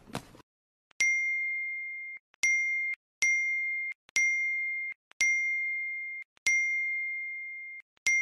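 A bell-like ding sound effect rung seven times at uneven intervals, starting about a second in. Each ding is a clear high tone that rings and fades, then is cut off abruptly, with dead silence between the dings.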